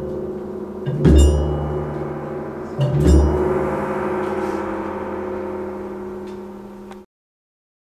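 A gong struck twice, about two seconds apart, each stroke a deep boom followed by a long ring, with the ring of a stroke just before carrying over at the start. The ringing cuts off suddenly near the end.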